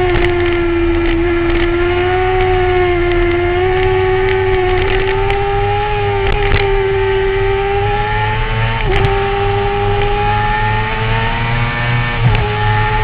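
Motorcycle engine running at high revs during fast riding, a steady high-pitched note that creeps slowly upward, with brief dips in pitch about nine and twelve seconds in.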